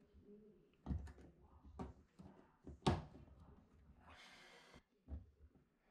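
Faint handling sounds as a wire spring clamp is worked onto a front-load washer's rubber door boot seal with zip ties: a few sharp knocks and clicks, the loudest about three seconds in, and a short scraping rasp a little after four seconds.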